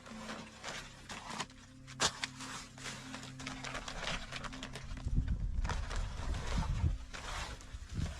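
Rustling and knocking of camping gear being handled while a tent is pitched, with a faint steady low hum underneath and a low rumble from about five seconds in.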